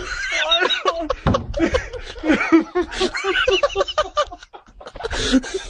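High-pitched human laughter, a quick run of short giggling notes that breaks off briefly about four and a half seconds in and then starts again.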